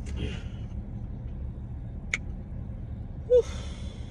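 Steady low hum of a parked car running, with a rustle as a hand goes into a cardboard food box at the start and a sharp click about two seconds in. Near the end a short, loud vocal sound stands out above the hum.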